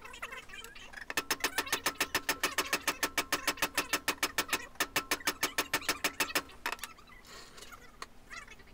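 Rapid light hammer taps on a socket, pressing a one-way bearing into the metal clutch bell of a Derbi flat-reed moped: about seven sharp metallic taps a second, starting about a second in and stopping after about five seconds.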